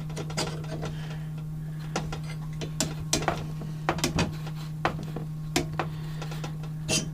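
Superior Tool flaring yoke being turned by hand, its feed screw driving the cone into the end of a 3/8-inch copper tube held in the clamp bar, making a run of irregular metal clicks and ticks over a steady low hum.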